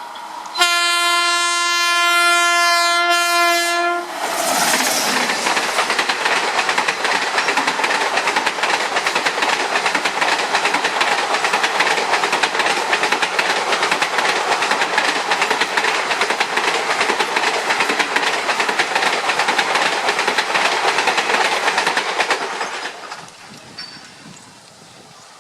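Indian Railways express train, the Thirukkural Express, sounds a long horn blast of about three seconds. It then runs past with a steady rush of wheels and clickety-clack on the track for nearly twenty seconds. The sound cuts off abruptly near the end, leaving a quieter background.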